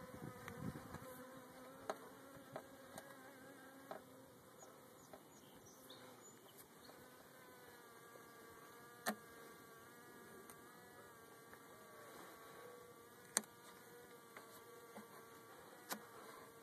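Faint buzzing of Italian honeybees flying close by, a steady drone that wavers slightly in pitch, with a few sharp clicks scattered through it.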